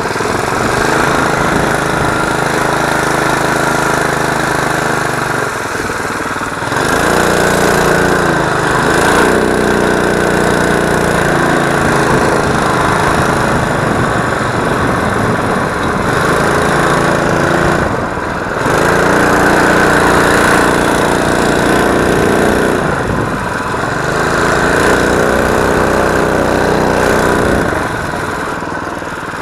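Small single-cylinder four-stroke engine of a mini ATV, a Predator 212, running under load as it rides, its note rising and falling with the throttle and dropping briefly several times as the throttle is eased off.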